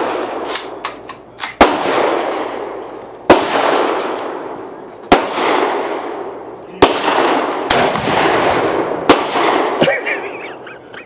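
Rifle shots at a firing range: six sharp cracks, one every one to two seconds, each followed by a long echoing decay.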